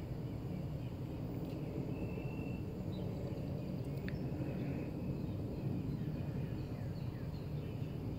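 Steady low outdoor rumble with faint, scattered bird chirps and a single sharp click about four seconds in.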